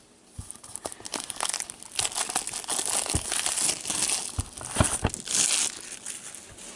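Plastic shrink wrap being torn and crumpled off a trading-card box, a crinkling that is loudest in the middle and fades near the end.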